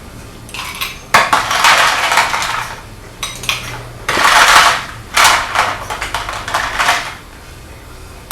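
Ice cubes being dropped into a glass, clattering and clinking in several bursts as the glass is filled about eight-tenths full.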